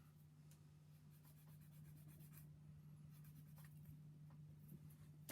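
Faint, light scratching of a sanding stick rubbing on a small plastic model-kit part, in short intermittent strokes over a steady low hum.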